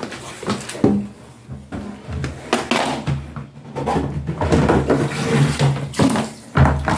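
Irregular plastic clicks and knocks as a washing machine's lint strainer is handled, over a low steady hum.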